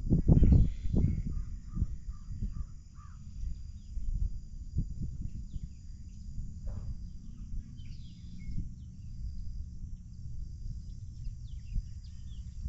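Wind rumbling on the microphone, with strong gusts in the first second, while birds call faintly: a quick run of about five repeated notes between one and three seconds in, then scattered short chirps.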